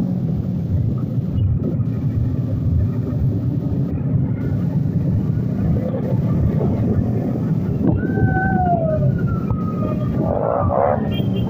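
Motorcycle ride heard from the saddle of a Bajaj bike: its engine runs steadily under heavy wind rumble while other motorcycles ride close by. About eight seconds in, a brief whistle-like tone falls in pitch and fades.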